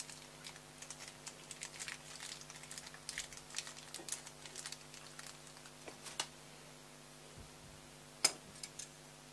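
Light clicking and rustling of a small plastic zip bag of tiny screws being handled and rummaged through by hand, busiest over the first six seconds, with one sharp click about eight seconds in.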